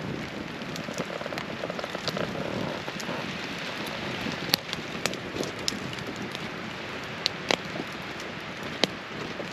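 Steady rain falling, with several single sharp ticks scattered through it.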